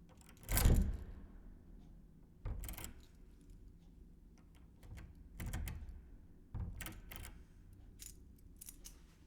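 A bunch of metal keys handled and jingled in about five short bursts of clinking, the loudest about half a second in with a low thump.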